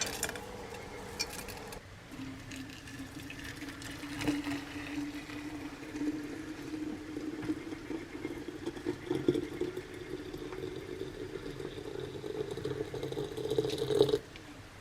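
Hot water poured steadily into a vessel over a herbal cough mix and pine buds to steep them, the pitch rising slowly as the vessel fills, before stopping abruptly. A few short clicks come first.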